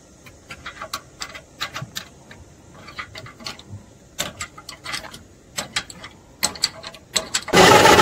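Scattered metallic clicks and knocks. Then, about seven and a half seconds in, the old road roller's engine suddenly starts running loudly.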